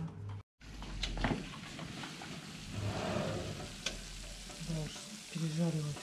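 Hot pizzas sizzling on their baking trays in an open electric oven, with a few light clicks of a metal tray against the oven rack.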